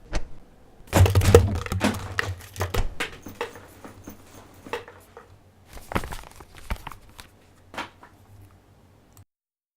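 Homemade foley sound effects: a dense flurry of rustling, knocks and taps for about two seconds, then a few scattered knocks, over a low steady hum that cuts off suddenly near the end.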